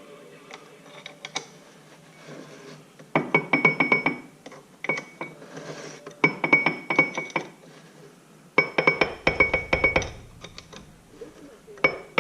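Ratchet wrench clicking in quick runs, five bursts with short pauses between, as bolts on a Ford 9-inch third member are snugged up by hand.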